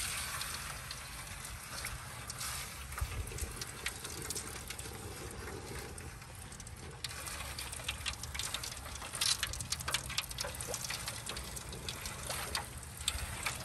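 Pork belly slab sizzling in hot frying oil in an aluminum foil tray, a steady hiss dotted with sharp crackling pops that come thicker after about seven seconds. A low steady rumble runs underneath.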